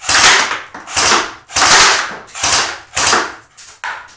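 Airsoft gun firing a string of short bursts, about six in four seconds, each cut off quickly; the last two are weaker.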